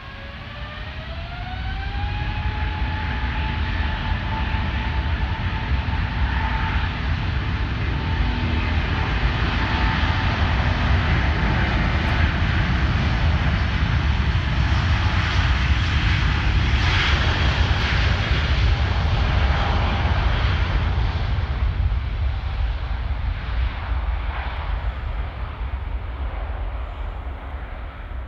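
Airbus A350-900's two Rolls-Royce Trent XWB turbofans spooling up to takeoff thrust, a rising whine over the first two seconds, then a loud steady rumble and hiss as the jet rolls down the runway. The sound grows to its loudest about two-thirds of the way through as the plane passes, then fades as it lifts off and climbs away.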